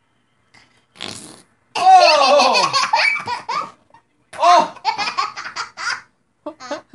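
A short squelchy fart-like noise from squeezed playdough about a second in, followed by two long bouts of laughter.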